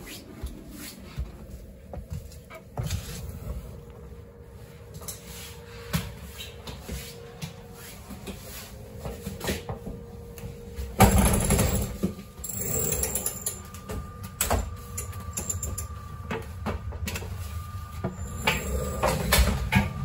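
Interior end doors of a Rhaetian Railway passenger coach being opened by hand and passed through: scattered handle clicks and clatter, with a loud rush of noise about eleven seconds in as the doorway opens. A steady thin whine runs after that.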